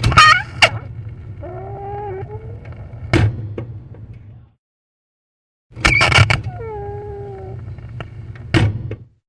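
Squeaky door hinges creaking as a door is swung, twice: each pass opens with a sharp, high squeal, slides into a longer, lower creak that wavers in pitch, and ends with a sharp knock.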